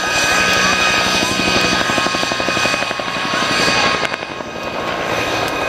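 Rotors of several helicopters in formation flight, a Bell AH-1 Cobra, a Bell 206 and two Robinson R44s, giving a rapid, even thudding over a steady high whine. The sound eases a little about four seconds in.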